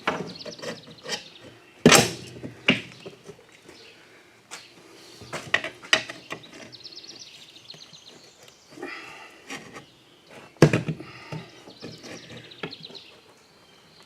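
Metal pry bars clanking and scraping against a small lawn mower wheel rim as a tube-type tire is levered onto it. Two sharp knocks, about 2 seconds in and near 10 seconds in, are the loudest.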